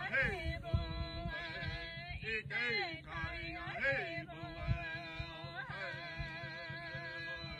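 A man singing unaccompanied in long, wavering held notes, his voice sliding up and down between them.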